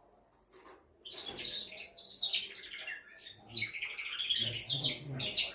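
Male canary singing: after a brief pause, a fast, continuous song of rapid trills and rolling phrases starts about a second in.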